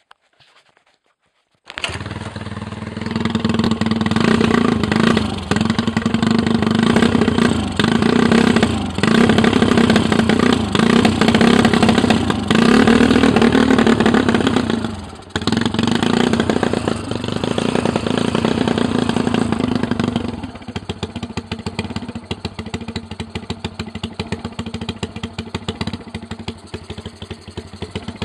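Motorcycle engine exhausting through a new chrome silencer: it starts abruptly about two seconds in, runs with repeated revs broken by short dips, then drops to a lower, uneven idle for the last third. The bike's new carburettor is giving trouble.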